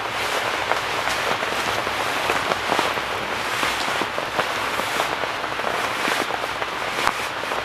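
Rain pattering densely on a nearby surface, a steady crackle of many sharp drop hits that grows louder right at the start.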